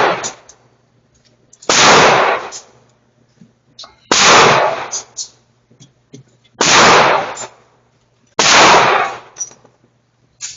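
Single gunshots fired at a shooting range, one about every two seconds: four full shots, plus the tail of one at the very start and another just at the end. Each is a sharp bang that rings out and dies away over most of a second.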